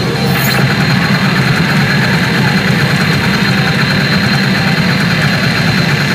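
Sammy CR Shin Hokuto Musou pachinko machine sound effect during a button-mash (連打) prompt: a loud steady low rumble with a rapid, even ticking pulse over it, which breaks off near the end.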